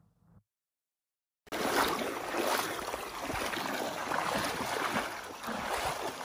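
Water splashing and sloshing as people wade through a shallow river. It cuts in abruptly after a second of silence and then runs on as a steady, rough wash.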